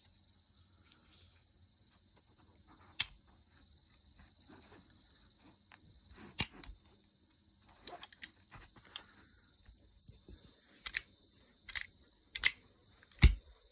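Cheap imitation butterfly knife being worked open and flipped by hand: sharp metal clicks and clacks of the blade and handles, a few spaced out at first, then coming about every second or less near the end.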